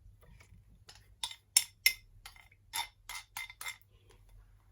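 A utensil clinking against a bowl in a run of short, irregular clicks while tofu cubes are gently mixed with beaten egg.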